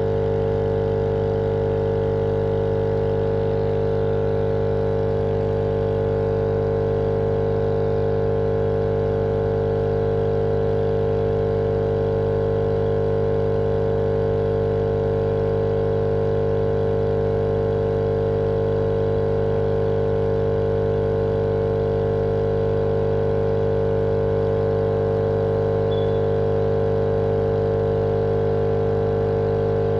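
Steady machine drone, the same unbroken hum with a strong mid-pitched tone over a low rumble, looped as a sleep sound for babies.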